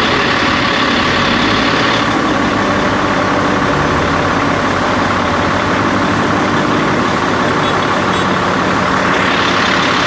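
Heavy diesel engine of roadworks machinery running loud and steady at close range.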